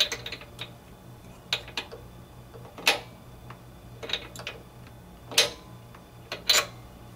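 Metal clicks and clinks from a tubular spark plug wrench and its tommy bar as a new spark plug is tightened by hand into a lawn mower's cylinder head. The sharp ticks come at irregular intervals, from a fraction of a second to over a second apart.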